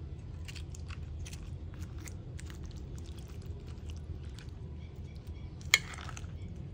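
A metal spoon tossing a dressing-coated lettuce salad in a dish: small wet crackles of leaves and light clicks of the spoon, with one sharp clink against the dish near the end, over a low steady hum.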